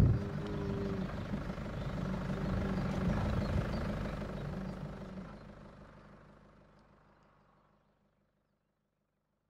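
An engine idling with a steady low hum, fading out from about five seconds in to near silence.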